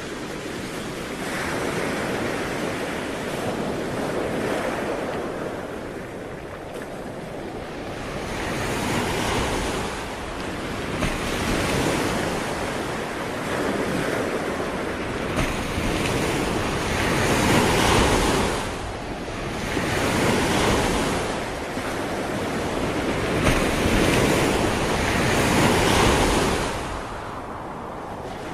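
Ocean waves breaking and washing up the shore, the surf swelling and ebbing every few seconds, with some wind noise on the microphone.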